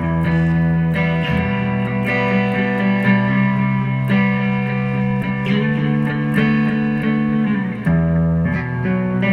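Background music led by guitar, with sustained notes that slide between pitches and change chord about every one to two seconds.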